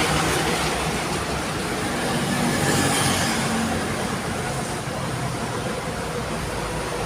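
Heavy vehicles passing on a busy highway: a steady rush of engines and tyre noise, easing slightly near the end.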